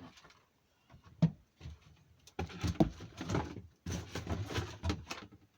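Packaging being pulled off a new chainsaw: a sharp knock about a second in, then two spells of rustling and crinkling as the wrapping is handled.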